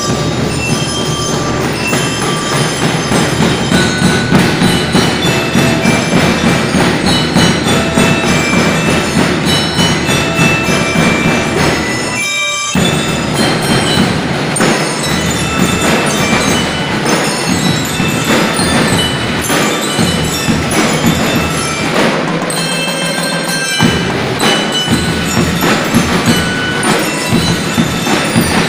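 Drum and lyre band playing: metal bell lyres ring out a melody over snare and bass drums, with a short break a little before halfway through.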